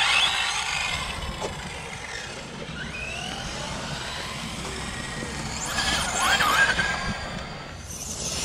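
Radio-controlled cars' brushless electric motors whining, the pitch rising and falling as the throttle is worked, over a steady hiss of tyres and wind. It is loudest about six to seven seconds in.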